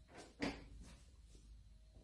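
A single sharp knock about half a second in, with a fainter scuff just before it, as a cat hops back from a mirrored sliding closet door on a tile floor.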